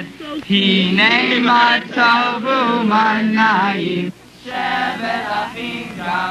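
A group of voices singing or chanting together in a steady rhythm. The singing breaks off briefly about four seconds in, then goes on more quietly.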